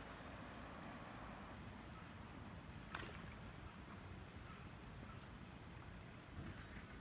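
Faint night chorus from rice paddies: a high insect chirp repeating evenly about four times a second over a steady hiss of other calling creatures. One sharp click about three seconds in.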